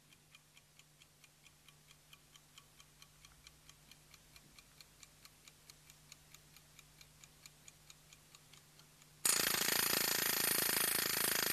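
A clock ticking steadily, about four ticks a second, fading in and growing louder. About nine seconds in, a sudden loud, dense ringing rattle cuts in, much louder than the ticking.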